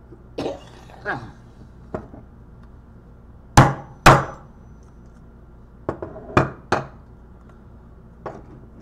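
A wood chisel struck again and again, with a few sharp knocks at uneven spacing, as it is driven along a hard-drive logic board's connector pin row to break the gold-plated pins off. The two loudest blows come about half a second apart, roughly halfway through.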